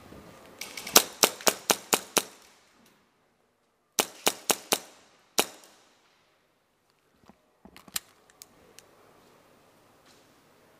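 HPA-powered Tokyo Marui Hi-Capa airsoft pistol firing in sharp reports with a short echo after each: a string of six about four a second, then four more and a single shot. Near the end come a few fainter clicks.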